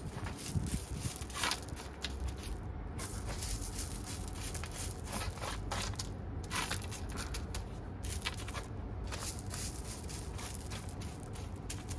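Irregular crunching, crackling and scraping of potting soil being worked by hand while repotting pepper plants.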